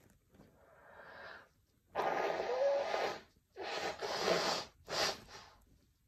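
A person with a cold forcefully clearing a congested nose after a sneezing powder: a rising breath, then three loud noisy nasal blasts, the first two over a second long and the last short, with a brief whistle in the first.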